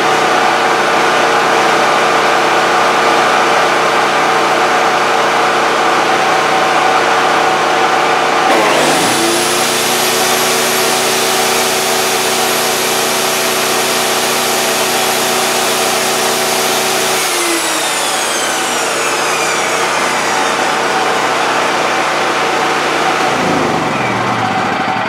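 Firman P03501 portable generator running steadily. About a third of the way in, the Bosch compact table saw is switched on: its motor and blade spin up to a steady high whine, and the generator's note dips under the starting load, which pulls its output down to about 95 volts. The saw runs for about nine seconds, then is switched off and winds down with a falling whine, leaving the generator running.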